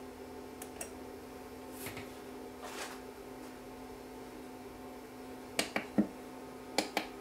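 Small sharp clicks of push-buttons being pressed on a DDS function generator, in two quick groups near the end, over a faint steady hum.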